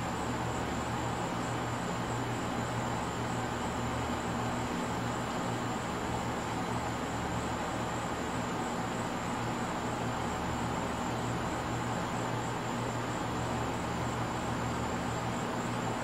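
Steady outdoor night ambience: a constant low hum and rumble with a thin, steady high-pitched whine over it, and no distinct events.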